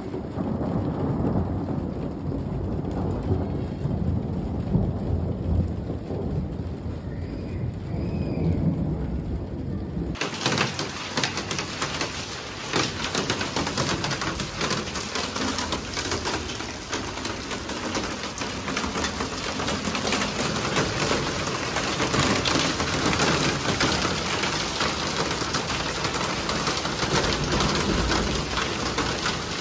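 Rain falling, with a low rumble of thunder for about the first ten seconds. Then a sudden switch to close, dense rain pattering on a concrete yard, which runs on steadily.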